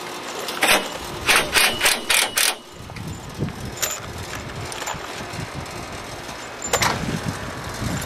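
A quick run of about five short, sharp knocks, then one more near the end, as a solar panel is set onto and fitted to its aluminium mounting rails.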